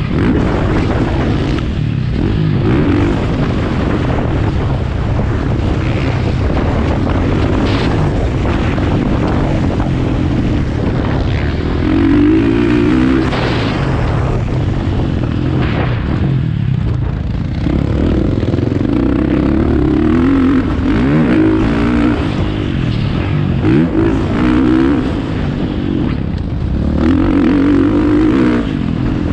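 Dirt bike engine revving up and down repeatedly as the rider races the motocross track, rising in pitch on each acceleration and dropping on each shift or throttle-off, heard close from the rider's helmet with a rush of wind noise underneath.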